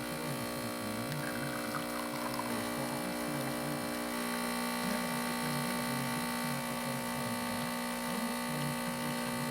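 Delonghi Perfecta espresso machine's pump running steadily while pulling a shot, a pretty loud buzzing vibration. The owner puts the loudness down to the empty steam-boiler mounting frame rattling, since this machine has no separate steam boiler to dampen it.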